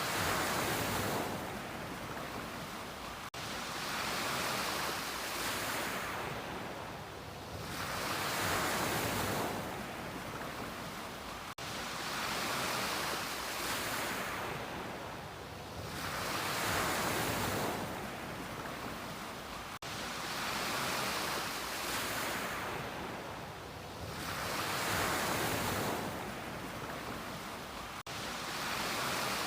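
Ocean waves breaking on a beach, the surf swelling and fading in a steady rhythm of roughly one wave every four seconds.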